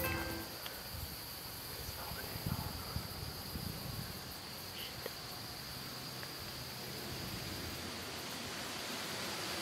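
Field ambience of insects chirring in one steady high drone, with a few faint rustles in the first half.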